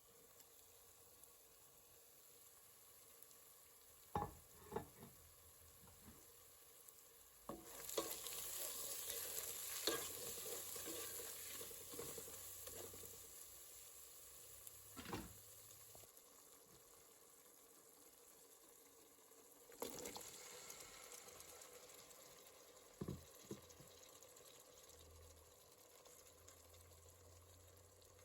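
Food sizzling in a pan of hot oil while being stirred, with a few knocks of a utensil on the pan. The sizzle flares up suddenly about eight seconds in and again near twenty seconds, each time slowly dying down.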